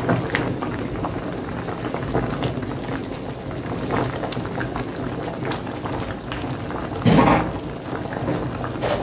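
Cow foot boiling in curry liquid in a large aluminium pot, a steady bubbling hiss with small knocks from a wooden spoon stirring it. A louder brief sound comes about seven seconds in. The meat is still boiling to soften before the seasonings go in.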